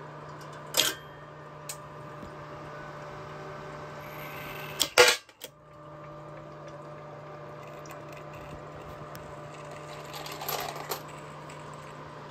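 Homemade induction case-annealing machine humming steadily, with brass rifle cartridge cases clinking against metal. The loudest clatter comes about five seconds in, when the hum briefly cuts out, and a few more clinks come near the end as cases drop into the metal pan.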